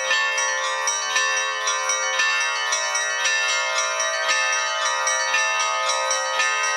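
Russian Orthodox bell ringing (zvon): a set of small and mid-sized bells struck in a rapid, continuous pattern, many bells ringing together, with no deep bass bell.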